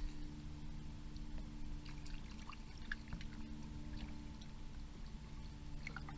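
Pool water gently sloshing and lapping, with faint small splashes, heard muffled through a GoPro's waterproof housing at the waterline. A steady low hum runs underneath.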